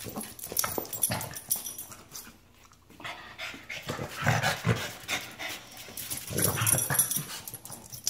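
Two dogs, a corgi and a Boston terrier, tussling over a tennis ball: panting and quick scuffling clicks, with low growls about four seconds in and again near the end.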